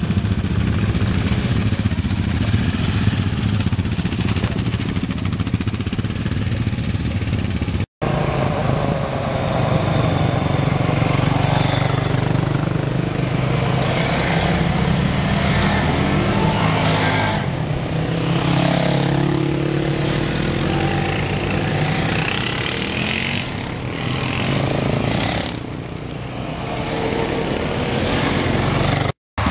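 Quad bike (ATV) engines running as a line of quads moves off, then a procession of quads driving past one after another, the engine note rising and falling with each pass. The sound cuts out briefly about 8 seconds in and again near the end.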